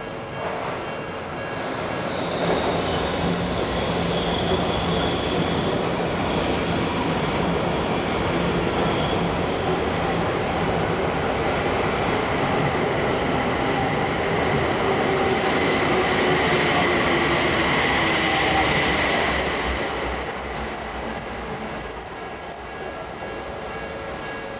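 Odakyu Odawara Line electric commuter train running past at close range, a dense rumble and rattle of wheels on rail with high steel wheel squeal, strongest about two-thirds of the way through. The sound eases off over the last few seconds as the train moves away.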